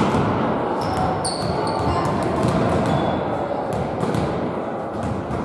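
A volleyball hitting the hardwood floor of a sports hall right at the start, then a few fainter ball knocks over a steady, echoing hall hubbub of players' voices. A brief shoe squeak about a second in.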